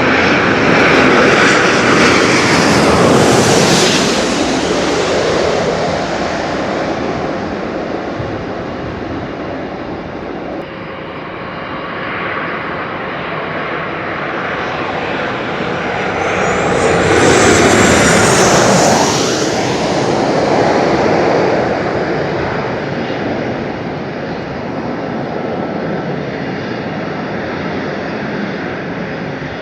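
Aircraft engine noise from planes passing close by, rising and falling. It is loudest at the start and again about two-thirds of the way through, where a whine falls in pitch as the plane goes past.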